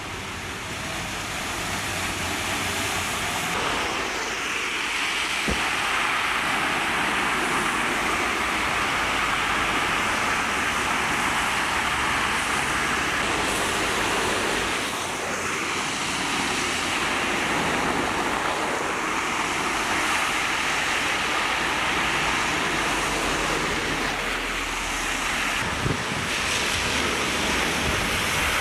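Heavy rain pouring down in a dense, steady hiss that swells about two seconds in, with a short knock near the end.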